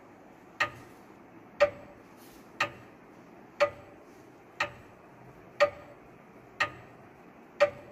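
A clock ticking, one sharp tick each second, each tick with a brief ring.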